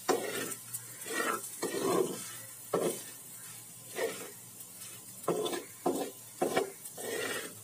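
Spatula stirring and scraping a dry, crumbly mixture of ground fried pumpkin bori, onion and spices around a nonstick frying pan: a dozen or so irregular scraping strokes, about one or two a second, with a faint sizzle of the oil underneath.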